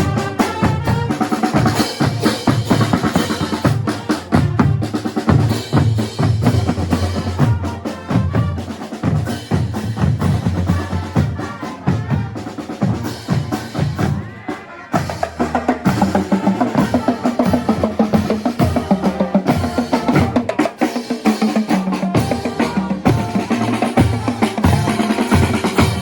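Brazilian fanfarra marching band playing, driven by its percussion section: bass drums and snare drums with rolls and rimshots, over pitched instrument lines. The loudness dips briefly about 14 seconds in, then the full band comes back.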